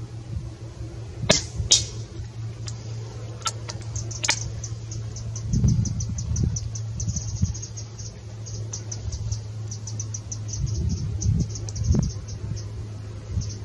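An FX Wildcat .177 PCP air rifle fires once with a short, dull report, and the slug strikes the target a split second later, then a few lighter clicks follow. A fast, high-pitched chirping then runs on over a steady low hum.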